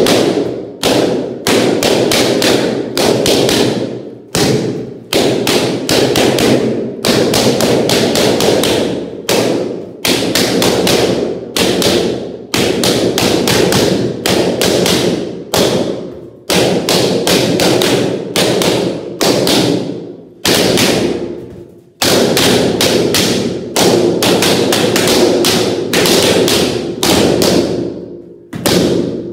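Purple latex balloons being burst one after another with a sword, in quick runs of several pops a second broken by short pauses. Each pop rings briefly in the room.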